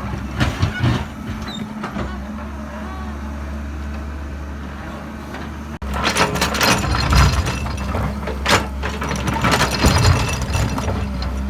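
Diesel engine of heavy earth-moving machinery running steadily, with repeated clanks and knocks of metal and rock. The sound cuts off abruptly about six seconds in and resumes with denser clattering.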